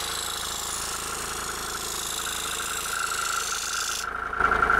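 Scroll saw running, its spiral blade cutting a curved line through a thin sheet of foam board: a steady motor hum with a constant whine and a high cutting hiss. About four seconds in the hiss stops and the saw's hum gets louder.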